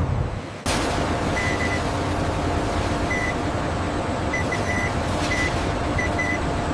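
A brief low rumble, then from under a second in a steady industrial machine drone with a faint hum. Short high electronic beeps sound over it in irregular groups of one to three, like a warning beeper on factory equipment.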